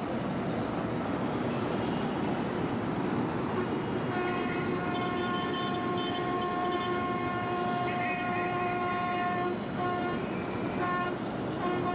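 Street traffic noise, then from about four seconds in a long, steady horn sounding several tones at once, with two short breaks near the end before it carries on.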